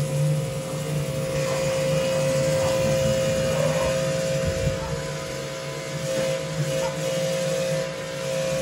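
Sun Joe 3200 electric pressure washer running steadily under load, its motor and pump making a constant whine, with water spray hissing under a Ridgid 18-inch surface cleaner as it is pushed over concrete.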